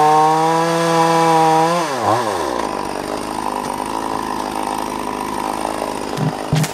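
Vintage two-stroke chainsaw at full throttle bucking a log: a steady high engine note whose revs drop sharply about two seconds in as it works through the wood, followed by a rougher, noisier cutting sound, with a few short knocks near the end.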